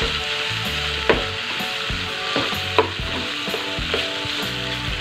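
Chicken gizzards sizzling in a chili spice paste as they are stir-fried in a frying pan, with a spatula scraping and knocking against the pan a few times.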